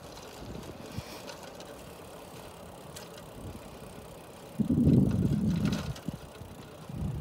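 Bicycle being ridden on an asphalt path: steady low tyre and drivetrain noise with a couple of small clicks, and a louder low rumble lasting about a second and a half just past the middle.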